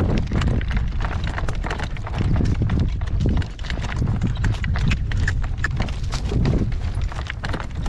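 Hoofbeats of a Morgan gelding pulling a carriage, with wind gusting on the microphone as a steady low rumble underneath.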